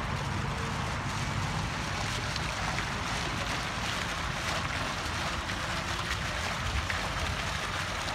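Small fountain jets splashing into a shallow pool: a steady rush of water, with a low rumble underneath.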